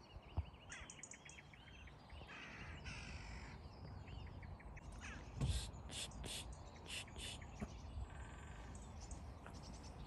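Faint bird calls: short chirping calls in the first few seconds, then a run of harsh caws from crows, about two a second, in the middle.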